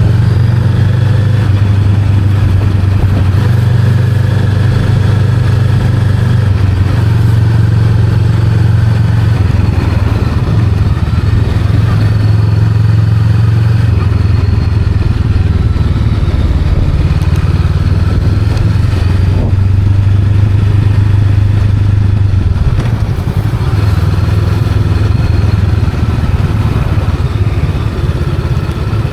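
Honda Rebel 500's parallel-twin engine running under way, its steady low note easing off briefly a few times and then picking up again.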